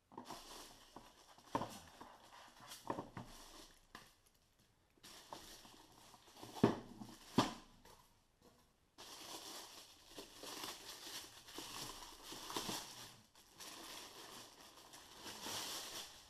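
Clear plastic packaging bag crinkling and rustling as it is pulled off a contact grill, with polystyrene packing blocks being removed. A few sharp knocks come through, the loudest two about halfway through.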